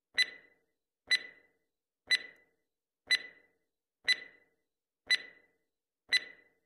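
Countdown timer sound effect: a clock tick once a second, seven ticks in all, each a short high click with a brief ring.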